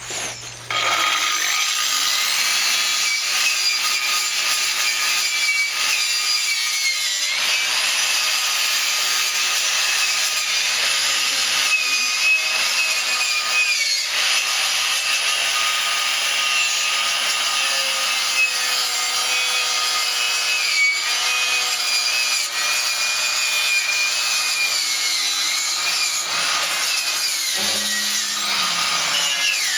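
Angle grinder fitted with a wire wheel, spinning up about a second in and brushing steel welds clean, its whine dipping and rising as it is pressed onto the metal.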